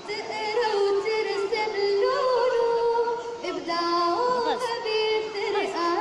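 Music with singing: a high voice sings a melody of held notes that step up and down.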